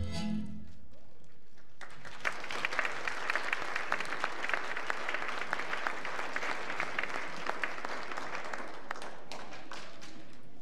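Audience applauding, the clapping starting about two seconds in and dying away near the end.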